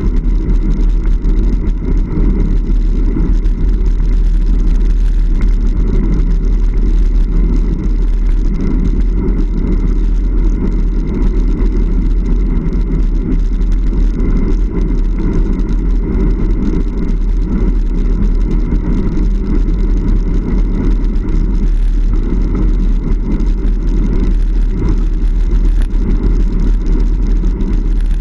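Hardtail mountain bike riding along a fire trail, heard from its own moving camera: a loud, steady low rumble of wind buffeting the microphone mixed with tyre noise from the trail surface.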